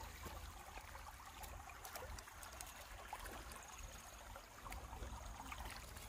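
Faint river water lapping and trickling at the sandy bank, with a low rumble and small scattered clicks.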